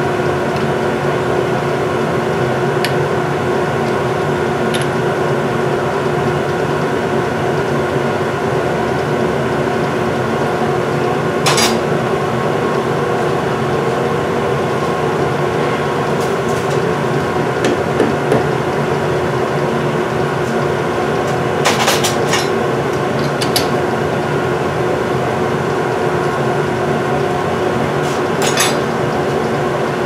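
Sharp metallic taps and knocks as an aluminium knob casting is set and seated in a lathe chuck, with a mallet tap near the end. There is one knock about a third of the way in and a quick cluster of several about two-thirds through. Under them runs a steady machine hum of several fixed tones.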